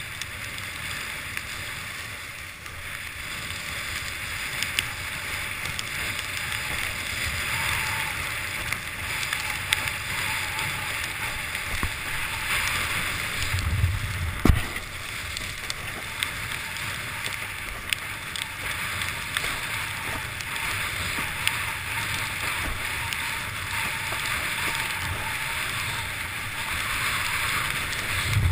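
Windsurf board sailing at speed over choppy water: a steady rushing hiss of water and spray, with scattered small taps and a heavy thump about halfway through.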